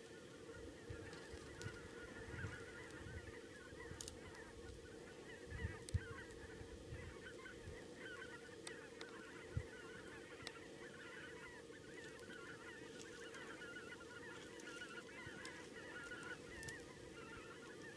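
A large flock of wild geese calling continuously, many short overlapping honks and yelps blending into a steady chatter. A few low thumps stand out, the loudest about six seconds in and again near ten.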